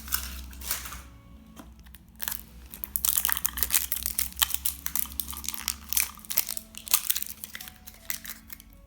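Plastic blind-bag packaging crinkling and crackling as a squishy toy is unwrapped, with a few crackles at first and then a dense, continuous run of them from about three seconds in.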